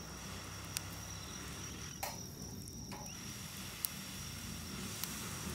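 Steady high insect trill under a low outdoor hum, with a few sharp clicks scattered through it, the strongest about two seconds in.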